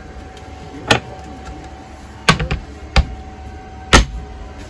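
Wooden refrigerator doors in a boat's galley being shut, their chrome latches knocking closed: four sharp knocks a second or so apart over a faint steady tone.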